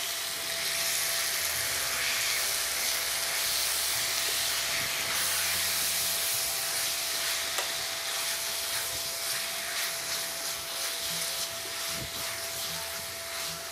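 Marinated chicken strips sizzling in hot sunflower oil in a frying pan, stirred with a spatula that scrapes the pan now and then. The sizzle eases a little in the second half, with a faint steady tone underneath.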